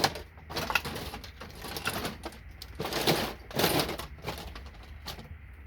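Handling noise: irregular bursts of rustling and clatter, strongest about three to four seconds in, dying away just before the end.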